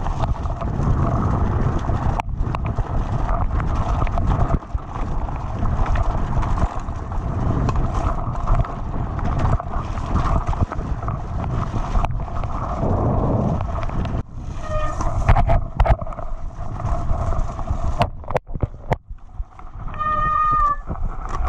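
Mountain bike running fast down a muddy, rocky track: wind rushing over the camera microphone and a steady rumble and rattle from the tyres and frame. In the last third the bike slows and the wet brake pads squeal briefly, twice, with a few sharp knocks over bumps in between; pads squealing as they heat up and meet the rain.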